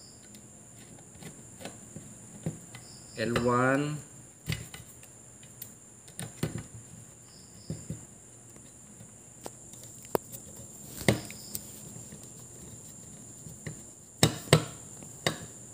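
Screwdriver and crimped wire lugs clicking and tapping on a screw terminal block as supply wires are fastened down, in scattered light clicks with a few sharper ones near the end. A brief hummed voice sound comes a little after three seconds in, over a steady high-pitched whine.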